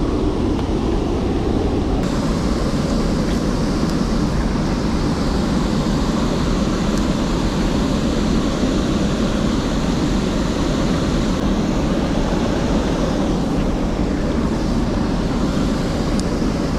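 Steady rushing of river water with wind rumbling on the microphone while wading.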